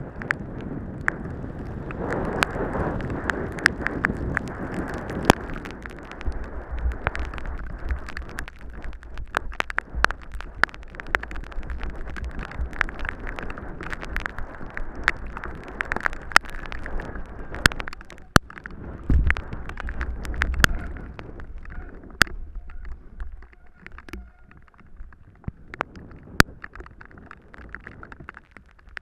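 Mountain bike ridden fast down a rough dirt trail: a steady rush of tyre and wind noise with many sharp clicks and knocks as the bike rattles over bumps. It gets quieter in the last several seconds as the bike rolls onto smooth grass.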